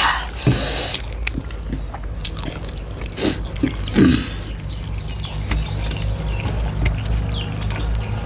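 A person eating: wet chewing and mouth smacks, with a few sharper smacks.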